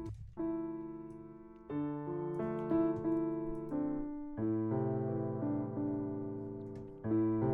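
Grand piano playing back a slow chord progression from a recorded audio track: a new chord struck about every one and a half to three seconds, each fading away, with a few higher melody notes moving above.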